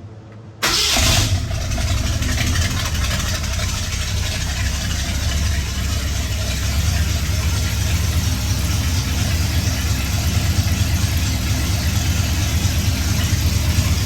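1966 Ford F100 engine starting about half a second in, catching almost at once, then idling steadily with a low exhaust rumble. This is a test run after a new exhaust manifold gasket was fitted to cure an exhaust leak.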